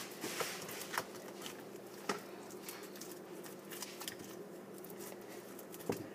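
Sticky clear-glue slime, activated with laundry detergent, being poked, pinched and pulled by fingers, giving small clicks and wet pops. The sharpest pops come about a second in, about two seconds in and just before the end, over a faint steady hum.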